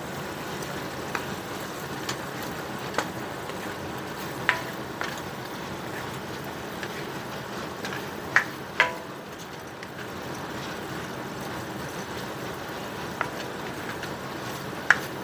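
Sliced pork frying in a stainless steel pan, a steady sizzle, while a metal spoon stirs it, knocking and scraping against the pan now and then, with a few sharper clinks.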